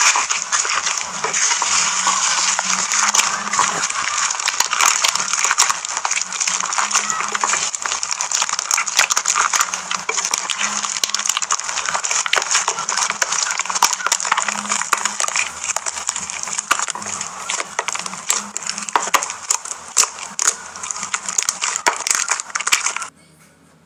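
Hands squishing and pressing fluffy blue slime, giving a dense run of crackles and small pops as trapped air bursts. It cuts off abruptly near the end.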